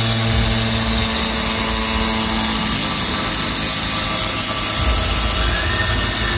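Corded angle grinder with a cutting disc running loud and steady as it cuts through a tile, with a whine that rises near the end.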